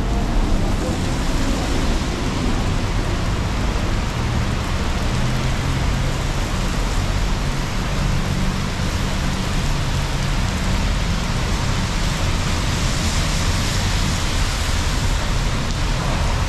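Heavy rain pouring onto the street and pavement: a loud, steady hiss. A low rumble of road traffic runs underneath.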